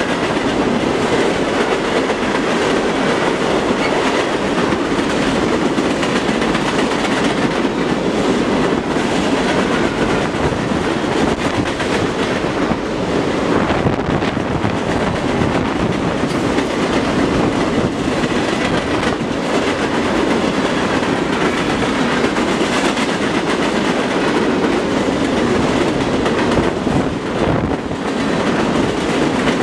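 Freight train cars rolling past: a steady rumble of steel wheels on rail, with irregular clicking from the wheels.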